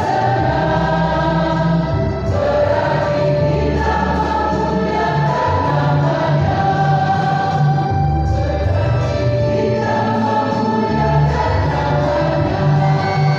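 A church choir sings a gospel song over instrumental backing with a steady, moving bass line.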